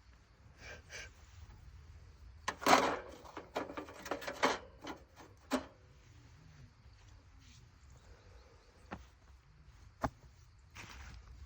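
A burst of rustling with sharp cracks and clicks lasting about three seconds, followed later by two single clicks, from something being handled close by.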